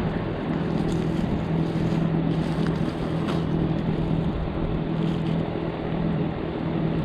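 A steady, even hum from a running machine, holding one low pitch, with a few faint clicks from handling small parts.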